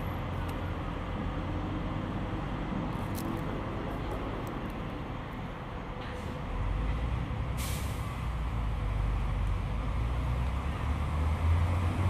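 Steady low rumble and hiss, with no clear bird call. The rumble swells a little past the middle, and a short sharp hiss sounds about two-thirds through.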